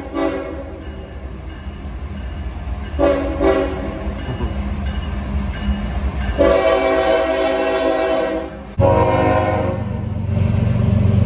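Approaching diesel freight locomotive sounding its multi-note air horn: a short blast at the start, another about three seconds in, then a long blast from about six seconds, over a low rumble of the engine and train. Near nine seconds the sound changes abruptly to another locomotive's louder low rumble with a steady horn chord.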